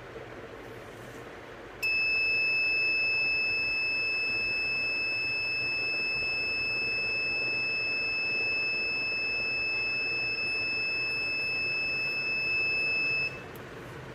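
An Arduino buzzer sounding one continuous high-pitched tone for about eleven seconds, starting about two seconds in and cutting off suddenly near the end. It is the heater's alarm that the water has reached the set threshold temperature, at which the heater switches off.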